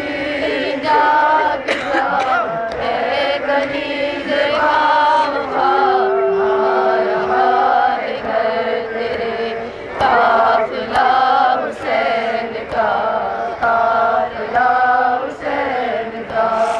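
A man chanting a nauha, a Shia lament, into a microphone through loudspeakers, in short rhythmic phrases with one long held note about six seconds in.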